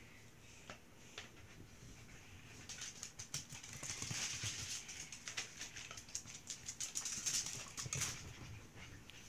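Rustling with many quick, irregular light clicks and crinkles, like paper and craft bits being handled, building up about two and a half seconds in and dying away near the end.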